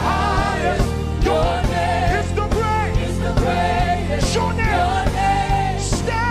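Live gospel worship music: a singer holding long, wavering notes over a band with a steady bass and a regular drum beat.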